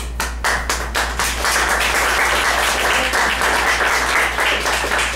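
Audience applauding. It begins as scattered claps and fills in to steady clapping within about a second and a half.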